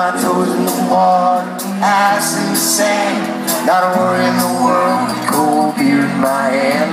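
Live band music: a melodic lead line whose notes slide up into pitch, over sustained chords and cymbal hits.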